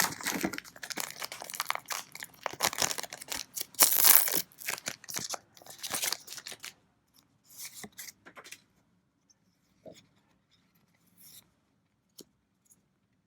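Foil booster-pack wrapper being torn open and crinkled, loudest about four seconds in. After that come only a few faint rustles.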